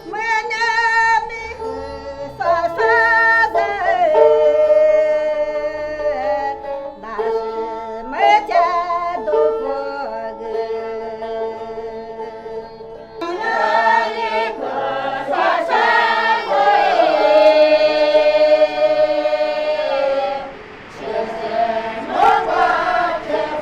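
Lisu folk song in the youye style, a love-song tune sung by several voices. The voices hold long, wavering notes over a steady lower note, and a new phrase begins about halfway through.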